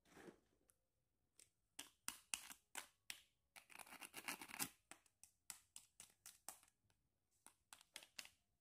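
Small pink plastic toy hairbrushes being handled: a string of light plastic clicks and taps, with a denser scratchy rubbing stretch around four seconds in.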